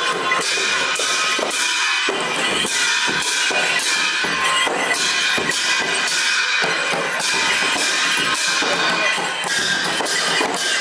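Lakhey dance music on Newari dhime drums and bhusya cymbals: steady drumming under continuously ringing, clashing cymbals.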